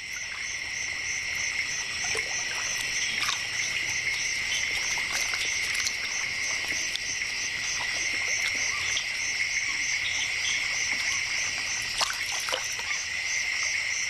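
Wetland chorus of insects and frogs: a steady high buzz with a fast, evenly pulsing trill above it. Occasional faint clicks and small splashes of water.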